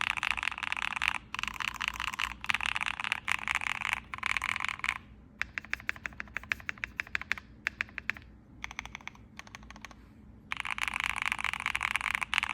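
Typing on a QK60 60% custom mechanical keyboard. It opens with fast, dense runs of keystrokes, slows in the middle to separate key presses several a second, and returns to fast typing near the end.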